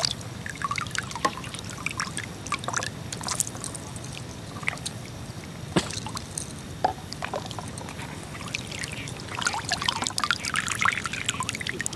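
Water trickling and lightly splashing, with scattered small drips and splashes and a busier patch of splashing about ten seconds in.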